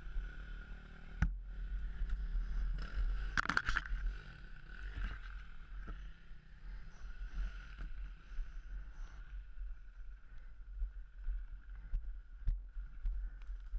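Off-road motorbike engine running at low revs on a steep wooded trail, with a steady rumble on the helmet camera. A loud sharp clatter comes about three and a half seconds in, with smaller knocks near the end.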